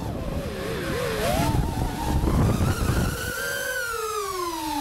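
FPV quadcopter's motors and propellers whining, the pitch swooping up and down with the throttle. A rough rumble of wind runs under it for the first three seconds, then the whine stands clear and falls in pitch near the end.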